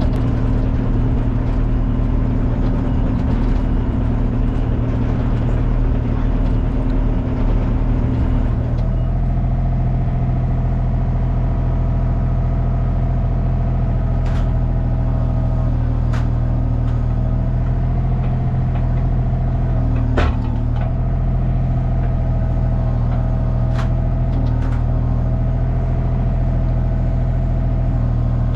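An engine running steadily. Its note changes about eight seconds in, and a few sharp knocks come later on.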